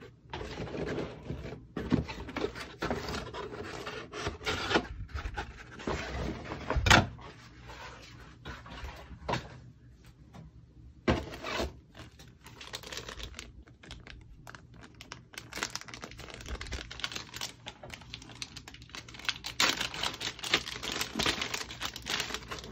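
Packaging being handled: a molded paper-pulp insert scraping against a cardboard box, then plastic bags crinkling and rustling as parts and a booklet are taken out of them. Light knocks come through it, the loudest about seven seconds in.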